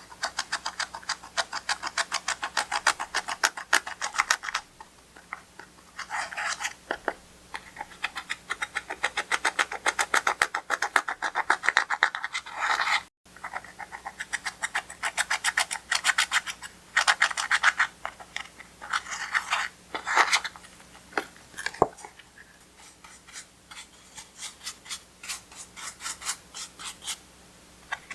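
Clear slime being squished and worked by hand, giving rapid runs of clicking and crackling in bursts of a few seconds, with short pauses between them.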